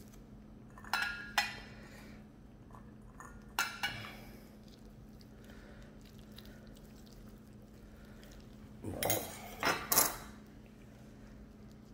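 Stainless steel prep bowls clinking and ringing briefly as gloved fingers reach in for garlic cloves and jalapeño slices: two light clinks about a second in, two more near four seconds, then a louder cluster around nine to ten seconds. A faint steady low hum runs underneath.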